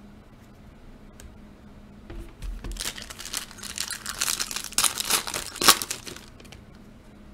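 Foil trading-card pack wrapper being torn open and crinkled by hand: a dense run of crackling starting about three seconds in and lasting about three seconds, with the loudest crinkle near the end of it.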